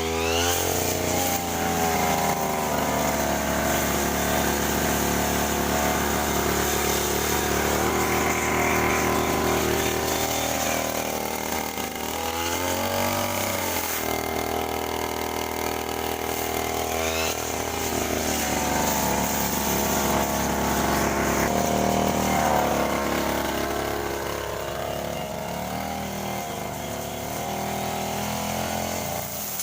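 Petrol grass cutter's small engine running under load as it cuts grass, its pitch sagging and picking back up several times as the cutting load changes.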